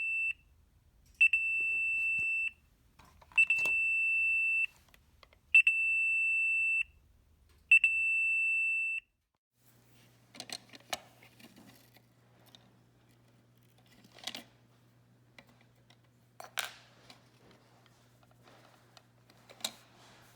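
Chamberlain / LiftMaster 888LM MyQ garage door control panel beeping: a high steady electronic tone in long beeps about every two seconds, five times, stopping about nine seconds in. The beeping is the fault sign that is traced to failing capacitors in the unit. After it come faint clicks and knocks over a low hum.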